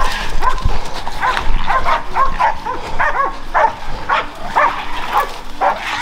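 Hog-hunting bay dogs barking at a bayed hog, a steady string of barks, about three a second.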